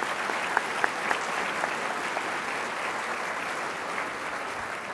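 A large audience applauding: a steady, dense round of clapping with a few single claps standing out.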